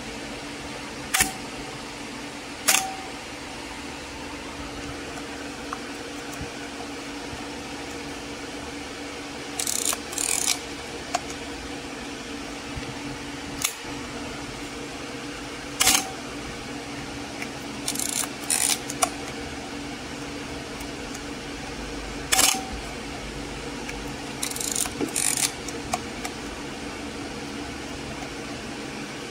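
Pentax P30t 35 mm film SLR body, no lens fitted, being dry-fired: several single sharp clacks of the mirror and shutter releasing, and between them short runs of quick clicks from the film advance lever being wound.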